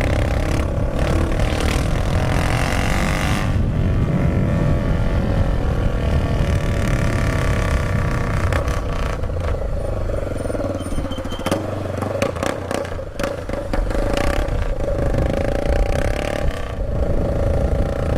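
Motorcycle engine running through a bare exhaust pipe with no muffler, a loud rumble while riding slowly; the rumble eases for a few seconds about two-thirds of the way through, then picks up again.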